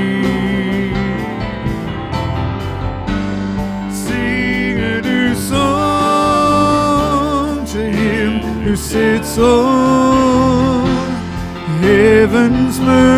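Live church worship band playing a praise song: singers hold long notes with vibrato over acoustic guitar and keyboard.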